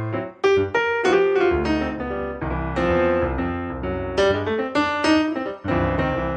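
Background piano music, a quick run of notes and chords.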